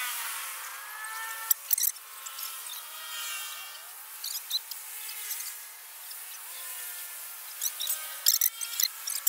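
Bicycles being handled: scattered sharp metallic clicks, with a quick run of clicks near the end, over faint voices in the background.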